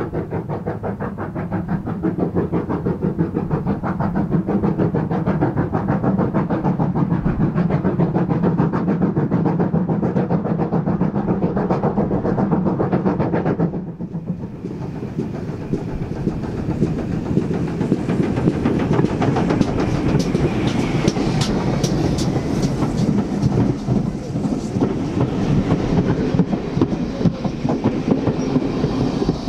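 Steam train hauled by GWR large pannier tank no. 9466 working past with a steady rhythmic exhaust beat. About halfway through this gives way to coaches rolling by close at hand, their wheels clacking over the rail joints with sharp clicks and some high squeal.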